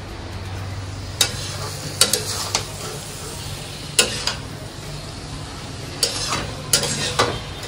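Food sizzling in a pan while a metal spatula stirs it, with sharp scrapes and taps against the pan every second or so. A steady low hum runs underneath.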